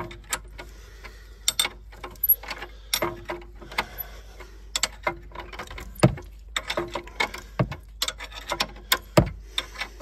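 Ratcheting spanner clicking in irregular runs of quick ticks, with a few louder knocks, as it winds off the nut on a suspension arm bush bolt.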